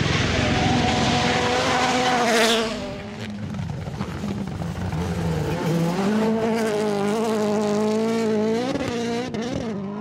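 Rally car engines at high revs on a gravel stage, the pitch wavering as the throttle works. About two and a half seconds in a car passes with a rush of gravel and tyre noise. From about five and a half seconds another engine note builds and holds, with quick rev swings near the end.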